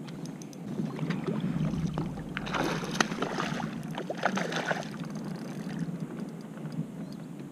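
A hooked bass thrashing and splashing at the surface right beside a kayak, in two bursts of splashing, the first about two and a half seconds in and the second a second or so later. Light clicking from the spinning reel being worked comes before the splashing.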